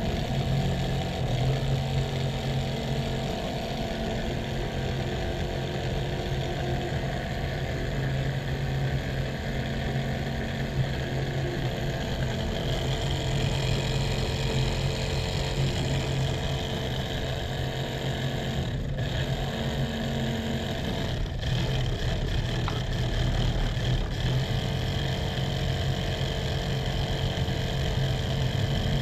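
Motor and drive of a homemade RC model tractor spinning its rotavator, a steady whirring hum with a couple of brief dips near the middle.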